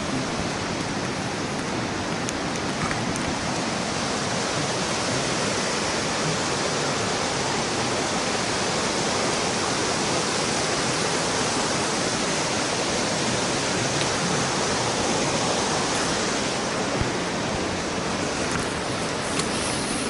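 Steady rushing of a large river waterfall and its rapids, Sogi Falls, growing a little fuller in the middle.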